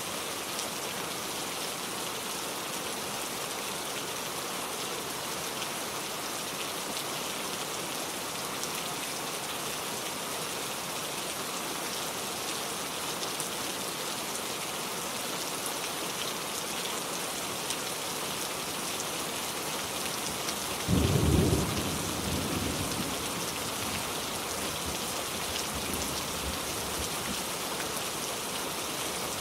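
Heavy rain pouring steadily. About two-thirds of the way through comes a sudden low clap of thunder, the loudest sound here, rumbling on for several seconds before it fades back under the rain.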